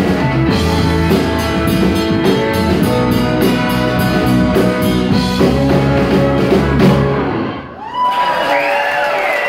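Live rock band with electric guitars, drum kit, keyboards and vocals playing the closing bars of a song, stopping sharply about seven and a half seconds in; the audience then breaks into cheering and applause.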